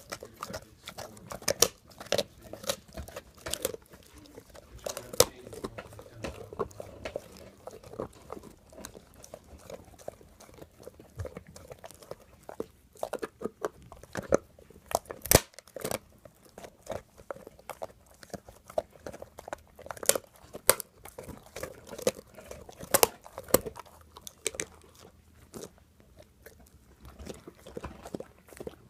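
An English mastiff crunching and gnawing on a bone: irregular sharp cracks and crunches with wet chewing between them, the loudest crack about halfway through.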